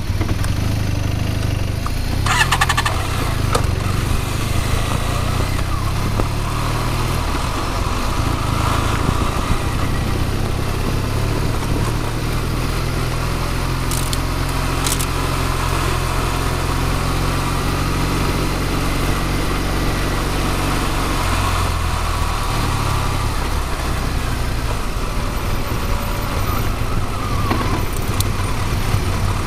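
Motorcycle engine running at low speed, its note rising and falling a few times as the bike rolls slowly along, with a steady rush of wind noise over it. A few sharp knocks sound, one about two seconds in and two more around the middle.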